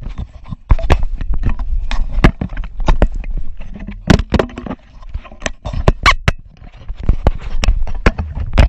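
Rapid, irregular sharp knocks and slaps on concrete, from a landed golden trevally flapping on the seawall, mixed with knocks of the camera being handled and set down.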